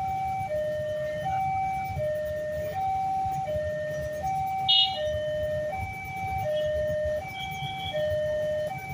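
Indonesian railway level-crossing warning siren sounding from its horn loudspeaker: a steady two-tone call, high and low tones taking turns about every three-quarters of a second, over a low rumble. A brief, sharp, high-pitched beep stands out about halfway through.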